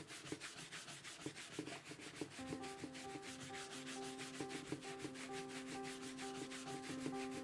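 Brisk buffing strokes of a shoe brush across a leather cap-toe oxford, a fast even scratching of several strokes a second. Soft background music comes in about two and a half seconds in.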